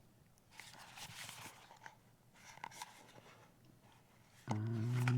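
Rustling and crinkling of a small product package being opened by hand, in irregular bursts. Near the end, a man's short hummed "mm".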